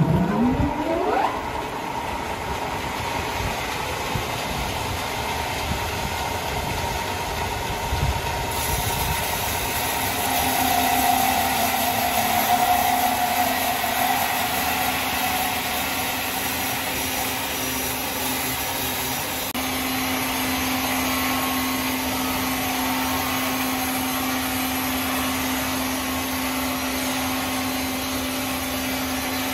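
A sawmill machine's motor spins up with a rising whine in the first second or so, then runs steadily with a constant hum. The running sound shifts abruptly twice.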